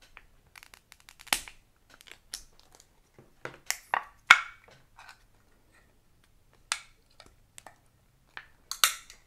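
Plastic wet-cat-food containers being handled, with scattered crinkles and sharp clicks, the loudest about four seconds in and a small cluster near the end.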